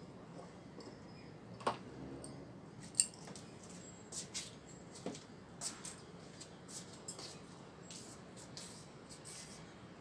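Scattered light clicks and taps from hands working at a metal refrigerator cabinet: a short ringing metallic clink about a second and a half in, a sharper tap at three seconds, then a run of small quick clicks.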